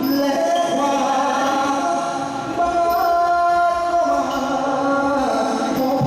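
Singing in long, drawn-out held notes over musical accompaniment, in the style of a Thai likay folk-theatre performance.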